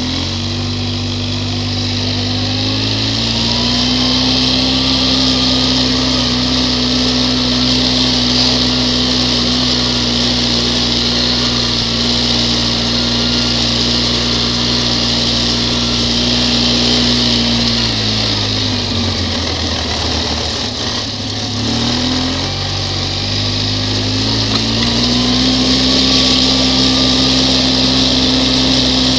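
ATV engine running at a steady pace along a dirt track, its pitch dropping about two-thirds of the way through as the throttle eases off, then climbing back up a few seconds later. A steady high hiss runs underneath.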